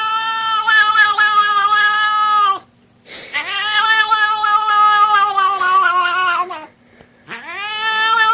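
A cat yowling in long, drawn-out calls: one already going that ends about two and a half seconds in, a second that lasts about three and a half seconds, and a third that starts near the end. Each call slides up as it starts and drops away as it ends.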